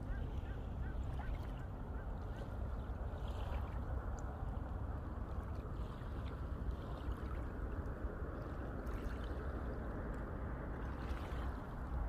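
Wind rumbling steadily on the microphone, over the soft wash of calm sea water along a rocky seawall.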